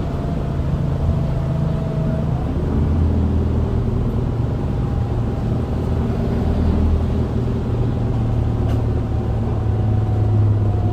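Isuzu Erga city bus's four-cylinder turbodiesel engine heard from inside the cabin while the bus is under way: a steady low drone whose pitch shifts about two seconds in and then holds, with a faint whine over it.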